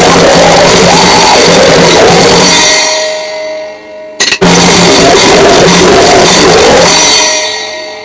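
Noisecore: a dense, distorted wall of sound with blasting drums and cymbals that fades out about three seconds in. Four quick sharp hits just after four seconds start a second blast just as short, which fades near the end.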